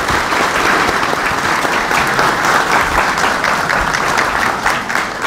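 Audience applauding steadily, a dense clatter of many hands, greeting a speaker who has just been introduced.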